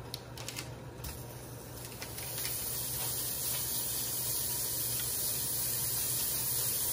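Butter sizzling in a hot enameled cast-iron Dutch oven, a steady hiss that starts about two seconds in, after a few light clicks of the utensil against the pot.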